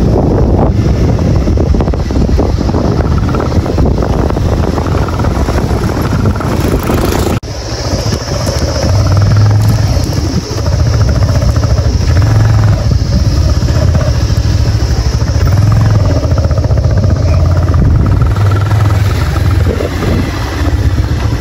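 Motorcycle engine running on the move, a steady loud drone with road and wind noise, broken by a sudden brief drop about seven seconds in.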